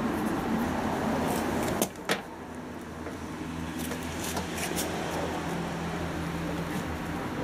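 Handling noise as a new drive belt is stretched onto a washing machine's drum pulley and motor: two sharp knocks a little before two seconds in, followed by a steady low hum.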